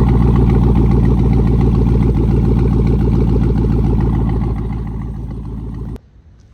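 Chevrolet Silverado's 4.8 L LS V8 engine running steadily with an even pulse. It fades over the last couple of seconds and cuts off abruptly near the end.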